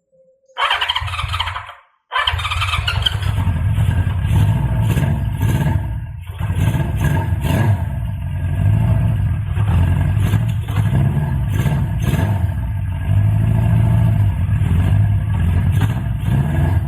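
Honda CB550F's air-cooled inline-four motorcycle engine on a start test: a short burst of electric-starter cranking, a brief pause, then a long uneven run as the engine turns over and fires.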